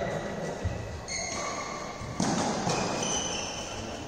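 Badminton rally: a racket strikes the shuttlecock with a sharp crack about two seconds in, echoing in the large hall, amid a few short high squeaks and a softer knock earlier on.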